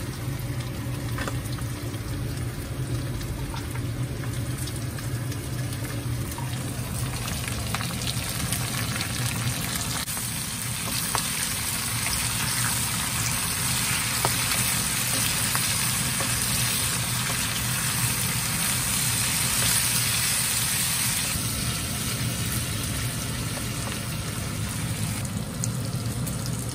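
Pork and garlic shoot stems stir-frying in a pan with chili bean paste: a steady sizzle with occasional stirring clicks, growing louder for a stretch through the middle. A steady low hum runs underneath.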